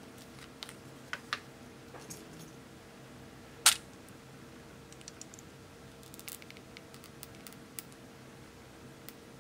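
Small plastic clicks from handling a lip tint tube: a few light clicks, then one sharp, loud click a little under four seconds in as the cap comes off, followed by scattered faint ticks as red tint is squeezed onto a plastic spoon.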